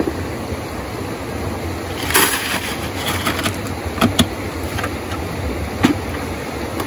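Rushing river water, a steady loud noise, with a few brief clicks and knocks about two, four and six seconds in.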